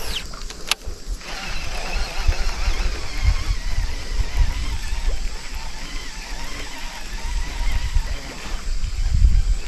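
A cast with a baitcasting reel: the spool spins out in a short falling whine, a sharp click comes under a second in as the reel is engaged, then a steady faint whir as the reel is cranked to retrieve the lure. Wind buffets the microphone in gusty low rumbles.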